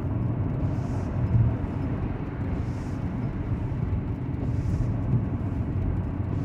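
Lorry engine and tyre noise heard from inside the moving cab, a steady low rumble. A faint hiss recurs about every two seconds on top of it.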